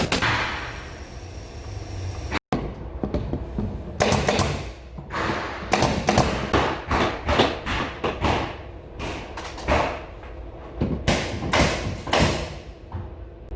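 Irregular series of sharp knocks and thuds from carpentry work on wood, several strikes a second at times, each with a short ringing tail.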